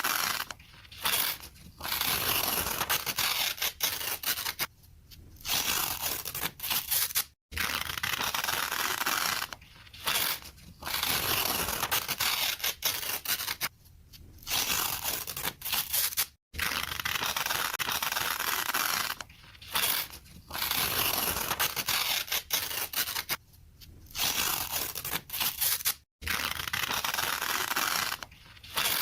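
Paper being ripped: a rough tearing sound in repeated strokes, each lasting a second to a few seconds, with short pauses between them.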